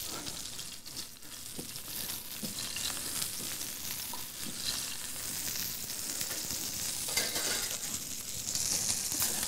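Halibut fillet searing in hot oil in a stainless steel frying pan, a steady sizzle.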